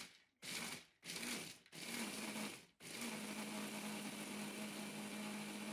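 A small electric kitchen appliance motor, pulsed in several short bursts and then run steadily with a constant hum.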